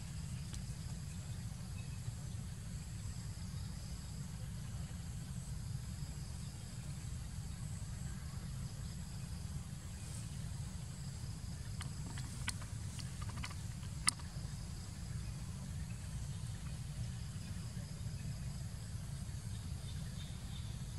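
Outdoor ambience: a steady low rumble with faint, steady insect buzzing high above it, and a few sharp clicks a little past the middle.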